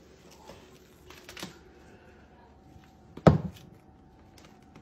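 Faint crinkling and small clicks of plastic cling wrap being handled over a bowl, then a single sharp clunk about three seconds in as the bowl is set down on a wooden floor.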